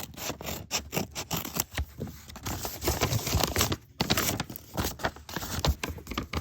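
A blind bag's packaging being torn and opened by hand: irregular rustling and scraping with many small sharp clicks as the smaller bags inside are handled.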